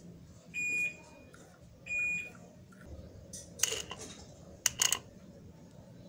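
Two short high electronic beeps, then two brief harsh buzzing bursts as bare wires are touched to the terminals of a washing-machine water inlet solenoid valve to power its coil.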